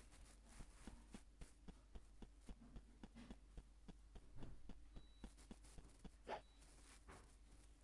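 Near silence: a faint low hum with scattered soft clicks, and a brief, very faint high thin tone about five seconds in and again around six and a half seconds.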